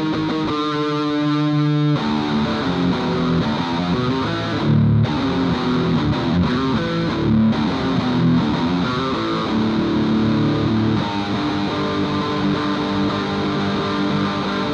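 Electric guitar played through an M-Vave Tank-G multi-effects processor, recorded direct, with a distorted tone. A chord rings out about half a second in, then a run of changing notes and chords follows.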